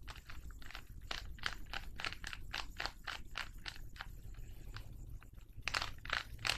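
Plastic Rubik's Cube being twisted in the hands, its layers clicking and scraping in a quick run of turns, about three or four a second, with a short lull and then a last flurry near the end.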